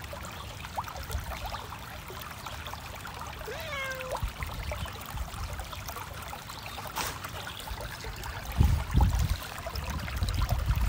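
Shallow creek trickling over stones, with a cat meowing once, a short rising-then-level call, about three and a half seconds in. Near the end come a few low thumps and rumble on the microphone.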